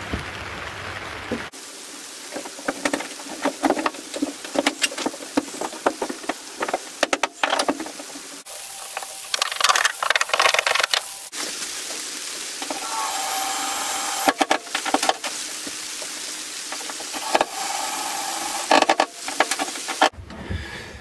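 A freshly steamed wooden rib being handled and worked into a wooden boat's hull: irregular knocks and wooden clatter over a steady hiss, with a squeal lasting a couple of seconds a little past the middle.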